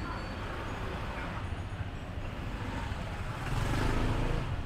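Street traffic noise, with a vehicle passing close and growing louder about three and a half seconds in, then fading back near the end.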